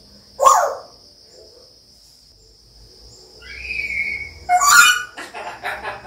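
African grey parrot vocalizing in mimicry: a short 'wow' about half a second in, a clear whistle held for about a second, then a loud call and a quick run of imitated 'ha-ha-ha' laughter near the end.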